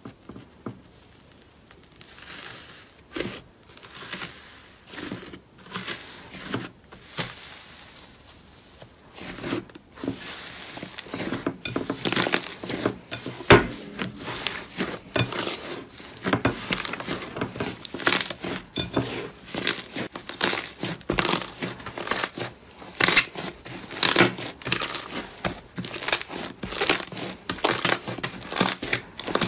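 Slime pressed and kneaded by hands, popping and crackling as air pockets break. The pops are sparse and quieter over a flat-pressed glitter slime, then come thick and fast from about ten seconds in as a thick white slime is squeezed and folded.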